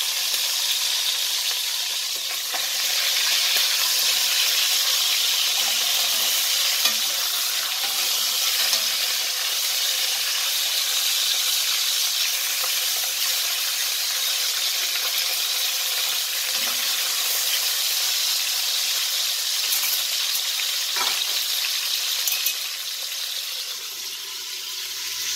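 Beef short ribs sizzling steadily as they sear in hot oil in an enameled cast-iron Dutch oven, with a couple of light clicks from the tongs turning them. The sizzle drops a little near the end.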